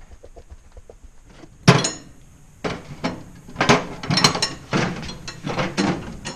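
Sharp metallic knocks and clinks of hand tools against metal bicycle parts: one loud knock, then a quick run of about eight more.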